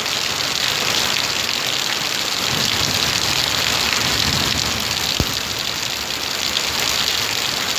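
Torrential rain pouring steadily as a dense hiss of drops on the ground and surfaces. There is a single short thump about five seconds in.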